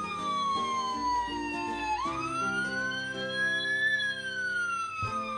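A slow electronic siren wailing over background music. The wail falls, starts again low about two seconds in, climbs, and falls away again near the end.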